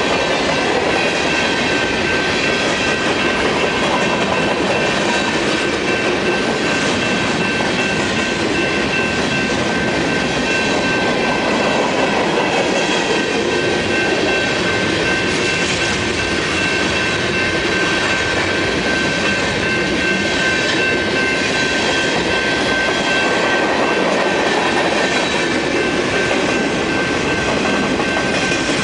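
Freight train cars rolling past close by: a steady loud rumble of steel wheels on rail, with a thin, steady high-pitched squeal over it.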